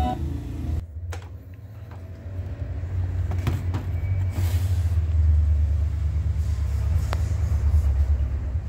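Music from the Sony CFD-V17 boombox's CD player stops as a CD control button is pressed. A low steady rumble with a few sharp clicks follows.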